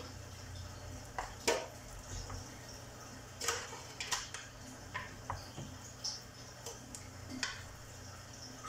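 A spoon scooping soaked-bread pudding mixture from a bowl into aluminium foil trays: irregular clicks and light scrapes of the spoon against the bowl and the foil.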